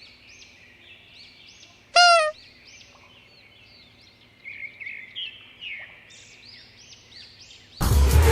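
Birds chirping throughout. A short, loud pitched squeal about two seconds in, and near the end a loud low stomach rumble with a falling pitched groan over it.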